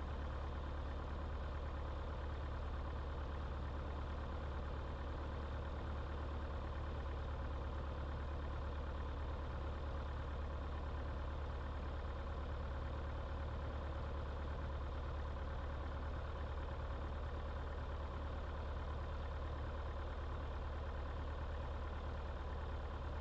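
Grumman AA-5-series light aircraft's piston engine and propeller running steadily at low taxi power, heard from inside the cabin as an even low drone.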